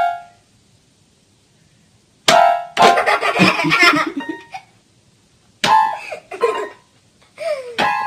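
Toy electronic keyboard sounding jumbled notes as a dog presses the keys with its nose, in three short bursts with silent gaps between.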